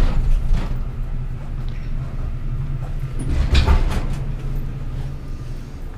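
Hospital bed being wheeled along, its casters rumbling steadily, with a heavy bump about three and a half seconds in.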